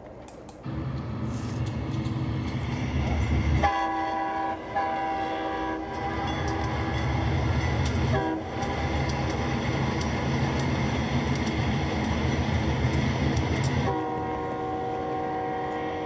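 Dubbed-in diesel freight locomotive sound: a steady low engine and rail rumble, with an air horn sounding a chord of several notes in two blasts about four seconds in, and again near the end.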